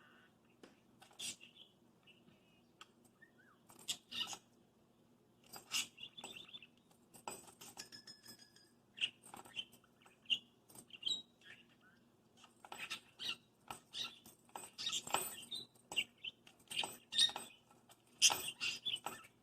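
Pet parakeet attacking a small toy bell, knocking and pecking it into irregular runs of metallic jingles and clinks, busier in the second half, with a few short chirps mixed in.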